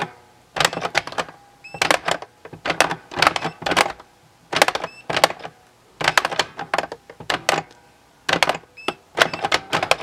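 Kingpin handheld electronic pinball game being played: its plastic flipper buttons and flippers clatter in quick bursts of clicks as the metal ball is knocked around. A few faint short electronic beeps mark the scoring.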